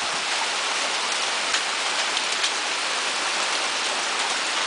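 Heavy rain pouring down in a steady hiss, with a few faint scattered ticks, as a storm builds toward hail.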